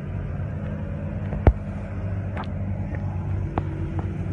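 Lamborghini V12 engine idling with a steady low rumble. A single sharp knock about one and a half seconds in, then a few faint clicks.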